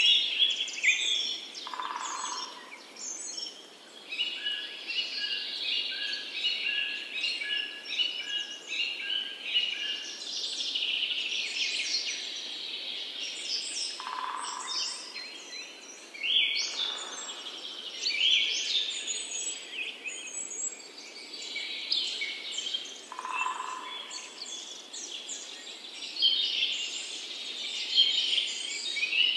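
A chorus of many songbirds chirping, trilling and whistling together. A lower call is heard a few times, and early on one bird repeats a short note steadily.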